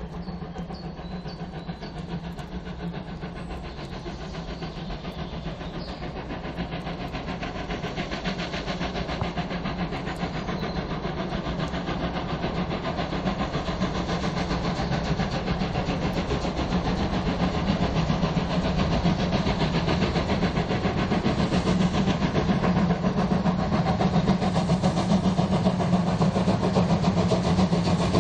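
Steam train hauled by class 01 steam locomotives, its exhaust and running noise a dense, steady rushing that grows steadily louder.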